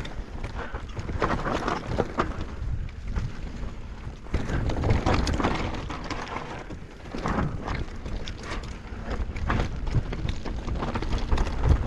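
Wind buffeting a GoPro microphone during a downhill mountain bike descent, with tyres on dirt and frequent rattling knocks from the bike over rough ground.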